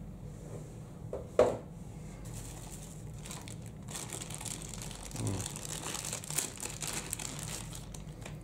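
Thin clear plastic bag crinkling as a cable is worked out of its wrapper, most busily in the second half. There is one short, louder sound about a second and a half in.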